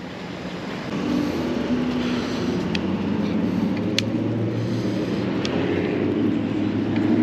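Riding noise on an e-bike: a steady rumble of tyres and wind with a low hum, louder from about a second in, and a few faint ticks.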